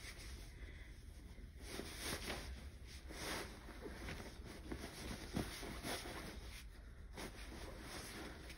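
Fabric rustling and rubbing, uneven, with a few soft thumps, as a pillow insert is pushed into a fabric pillow cover.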